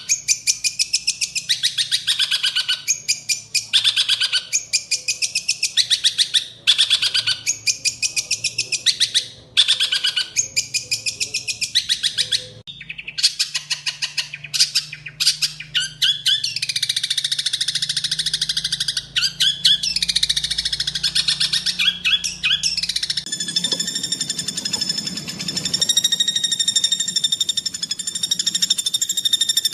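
Greater green leafbird (cucak hijau) song: rapid, harsh, tightly packed bursts of repeated notes and chatter. About 23 seconds in, this gives way to a steady buzzing trill that holds the same pitch.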